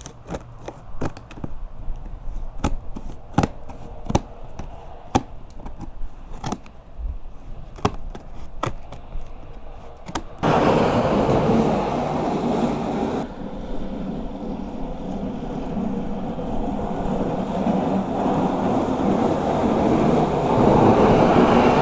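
A cardboard box being handled and opened: irregular sharp clicks and knocks for about ten seconds, then a sudden loud rustling of the packaging that carries on.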